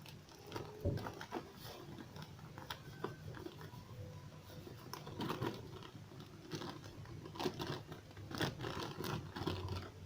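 Plastic packet of basbousa mix crinkling and rustling as it is opened and emptied into a bowl, with scattered light taps and knocks.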